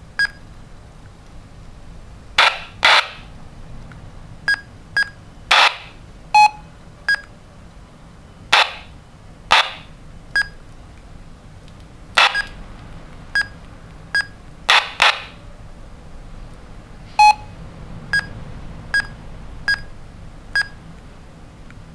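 Handheld walkie-talkie keypad beeping as a frequency is keyed in: about twenty short electronic beeps at uneven intervals, a few longer and fuller than the rest.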